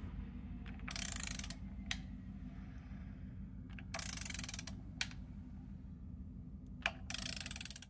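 A ratchet wrench clicking in three short bursts about three seconds apart, with a single sharp click between each, as the Porsche 944 engine is turned over by hand, rotating its timing and balance-shaft belts. A faint steady hum runs underneath.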